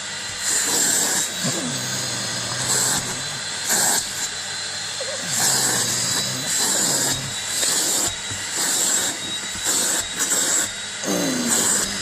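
Vacuum cleaner running with a steady high whine, being used on a dog's coat. Its hiss swells and eases about once a second as the nozzle is worked over the fur. A few short falling tones come through underneath.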